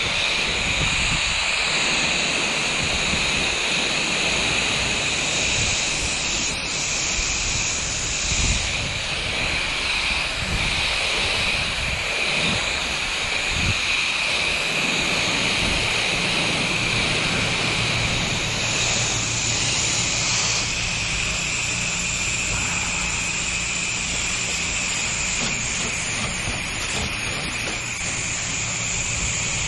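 Pressure washer running, its water jet spraying with a steady hiss over a low machine hum.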